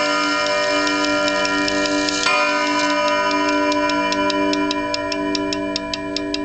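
Grandmother clock striking 7 o'clock. The ring of one hour strike fades, and a second strike about two seconds in rings out; it is the last of the seven. The movement's steady quick ticking then comes through as the ringing dies away.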